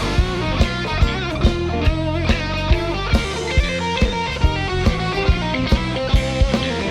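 Live blues band playing an instrumental passage: an electric guitar lead with bent notes over bass and a drum kit keeping a steady beat.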